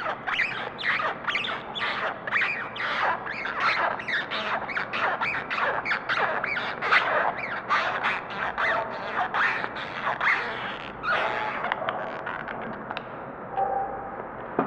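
A rapid, continuous run of shrill squeals, several a second, swooping up and down in pitch. They thin out and grow quieter over the last few seconds.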